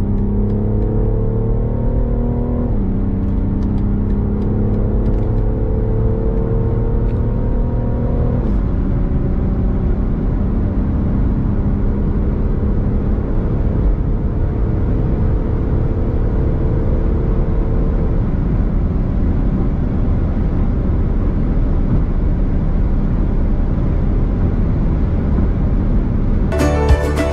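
Car engine accelerating hard at full throttle. Its pitch climbs and then drops at each upshift, about three seconds in and again about eight seconds in; after that the note rises slowly under growing wind and road noise at high speed. Music cuts in at the very end.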